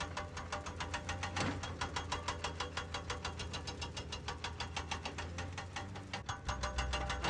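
Crane winch hoisting a load, clicking rapidly and evenly at about ten clicks a second. A low hum joins near the end.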